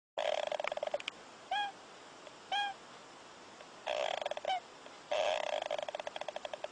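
An animal snoring in raspy, fluttering snores, with short squeaky whistles in between, about three of them.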